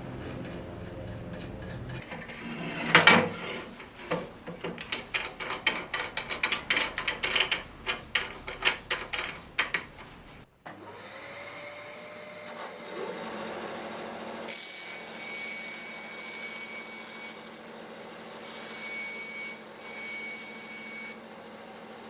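A run of irregular clacks and knocks, then, after a brief break about halfway through, the Scheppach HBS 300 bandsaw's electric motor spins up with a whine that rises over about a second and then runs steadily. This is a trial run of the newly fitted blade with its guide bearings just adjusted.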